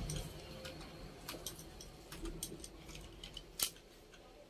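Faint, irregular clicks and taps of a Zebronics ZEB-A27FHD monitor's metal stand pieces being fitted together and a screw being driven with a screwdriver, with one sharper click near the end.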